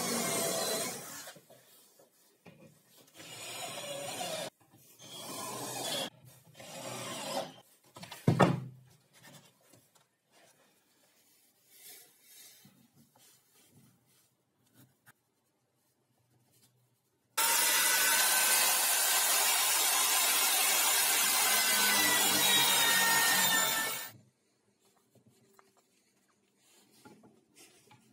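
Cordless drill boring into the plywood fence for about a second, then scattered handling of wooden parts with a sharp knock about eight seconds in. Later a power tool works into wood loudly and steadily for about six seconds, then stops suddenly.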